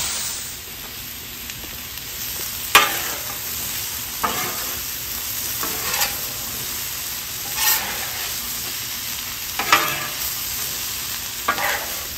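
Steak and vegetable stir fry sizzling on a Blackstone flat-top griddle turned up high to brown. About seven short scraping strokes come at uneven intervals as the food is stirred and turned across the griddle.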